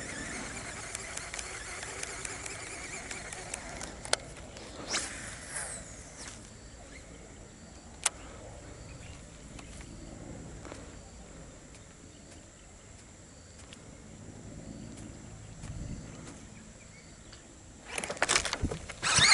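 Faint open-air ambience on the water with a few light, sharp clicks. Near the end comes a sudden, louder noisy burst.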